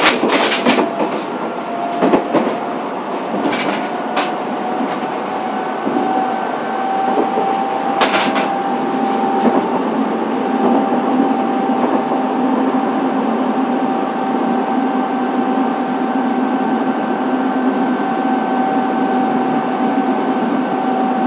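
Fukuoka City Subway 2000 series electric train running, heard from inside the car. A steady motor whine rises slightly in pitch over the first several seconds and then holds, and a lower hum joins about nine seconds in. A few sharp knocks come in the first eight seconds.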